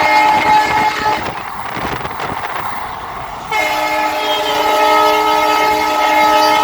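A WDG4 diesel locomotive's horn blowing a long chord of several tones. It cuts off about a second in, leaving the noise of the moving train. It comes back abruptly just past the middle and keeps blowing.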